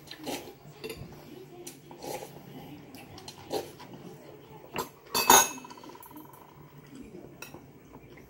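Utensils clinking against bowls while eating, a few separate clinks. The loudest comes about five seconds in and rings briefly.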